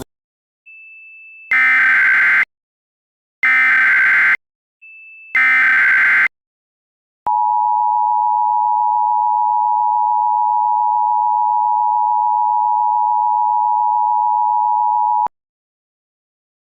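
Mock Emergency Alert System tones opening a tornado watch alert. First come three bursts of SAME header data, each about a second long and about two seconds apart. About a second later the steady two-tone EAS attention signal starts, holds for about eight seconds and cuts off sharply.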